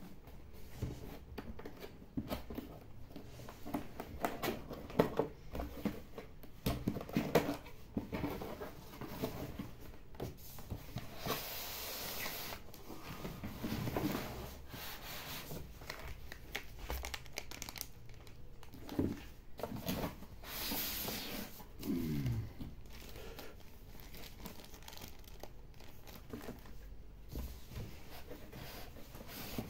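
A cardboard box being opened and its styrofoam packing slid out: irregular scraping, rubbing and knocking of cardboard and foam, with a couple of longer rasping slides and a short falling squeak about two-thirds of the way through.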